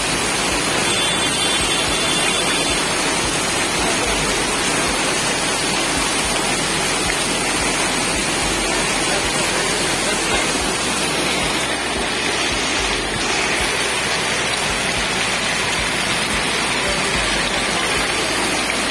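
Heavy monsoon rain pouring onto a flooded street, a steady dense hiss of drops splashing into standing water.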